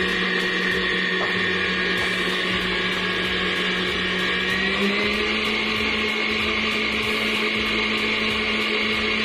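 Electric stand mixer motor running steadily, its beaters mixing chocolate cake batter in a stainless steel bowl; the pitch steps up slightly about five seconds in.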